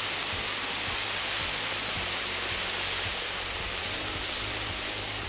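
Pork ribs and vegetables frying in a cast-iron kazan over a wood fire, giving a steady sizzling hiss.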